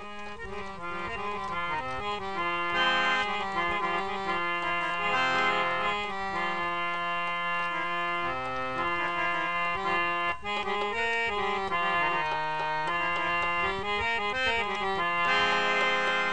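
Harmonium playing a melody of held reed notes over a steady low drone, with no singing, growing louder over the first few seconds.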